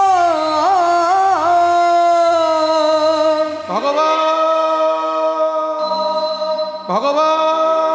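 A kirtan singer's voice holding long, drawn-out notes, with wavering ornaments in the first second or so and a sharp upward scoop into a new held note about four seconds in and again near the end.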